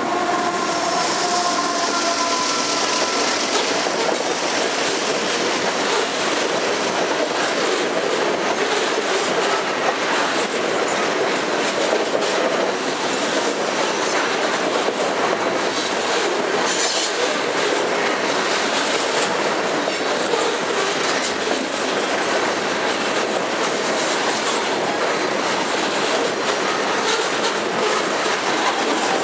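Loaded grain hopper cars of a long freight train rolling past close by: a steady rumble of steel wheels on rail, with clicks as wheels cross rail joints. A brief squeal from the wheels sounds in the first few seconds.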